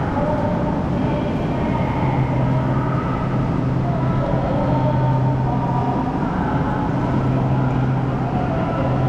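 Steady low mechanical hum with faint voices in the background.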